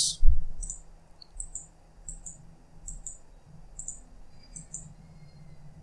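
Computer mouse clicking, short sharp clicks often in close pairs, about two or three a second, over a steady low hum. A dull thump comes just after the start.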